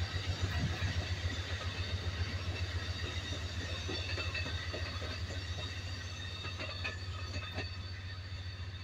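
Amtrak Superliner double-deck passenger cars rolling past, a steady low rumble of wheels on rail with scattered clicks, easing slightly as the last car moves away near the end.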